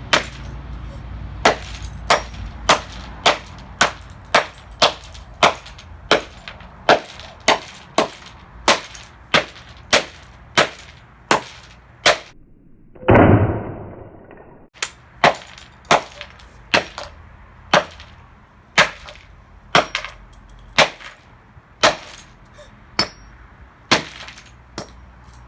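Hammer blows on the smashed remains of an alarm clock radio, sharp clanging strikes coming about one to two a second. About halfway through, a loud noisy rush lasts a second and a half and cuts off suddenly, then the strikes go on.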